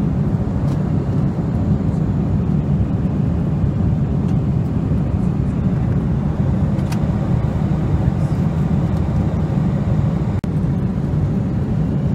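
Steady cabin noise of a Boeing 747-400 in flight: a deep, even rumble of airflow and engines, with a few faint ticks.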